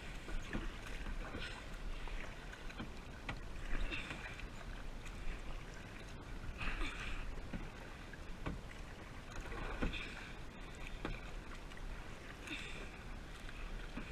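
Kayak paddle strokes splashing in the water, a swish every two to three seconds, over a low steady rumble of wind on the microphone.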